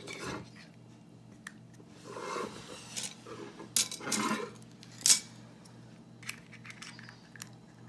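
Hard plastic pieces of a toy smash ball being handled and fitted together by hand: scattered light clicks and clacks with some rustling, the sharpest click about five seconds in.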